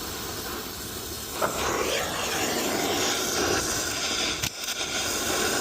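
Brazing torch flame hissing steadily while a copper line is brazed, with wind buffeting the microphone. It gets louder with a small pop about a second and a half in, and briefly drops out for a moment near the end.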